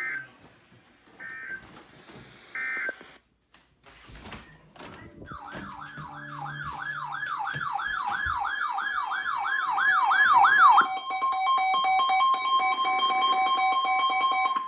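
Emergency Alert System tones. First come three short digital data bursts about a second and a half apart, then a loud warbling siren tone that sweeps up and down about two and a half times a second. About three quarters of the way in, the warble gives way to the steady two-tone EAS attention signal.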